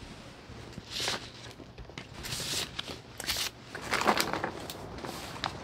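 Kitchen knife cutting on a wobbly cutting board: a handful of irregular knocks and scrapes spread over a few seconds.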